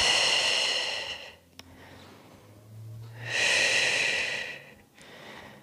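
A woman taking deep, audible breaths during a stretch: two long breaths, the first right away and the second about three seconds in.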